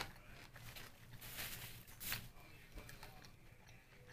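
Soft chewing and wet mouth clicks from eating a sushi roll, with a short rustle about a second and a half in.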